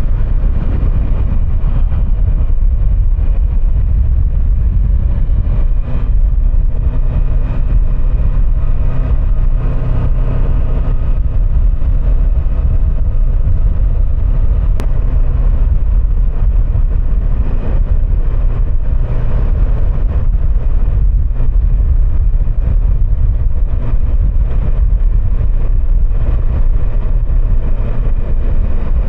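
Kawasaki Versys 650 parallel-twin motorcycle being ridden, its engine running under a steady rush of wind on the microphone, with slight changes in engine note now and then.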